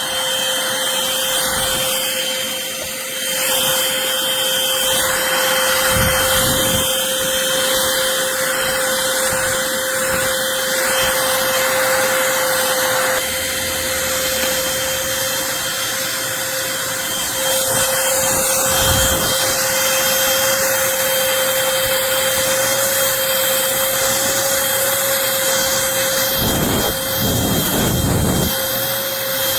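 Eureka Blaze cordless stick vacuum running steadily with a constant whine, with a few low knocks as it is pushed about.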